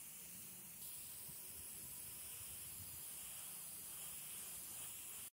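Aerosol spray paint hissing steadily from the can, getting louder about a second in, then cutting off suddenly near the end.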